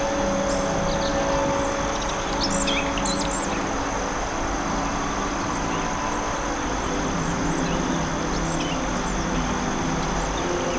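Birds chirping in short, high calls over a steady, sustained drone of ambient music. The chirps are busiest in the first few seconds and then thin out to a few scattered calls.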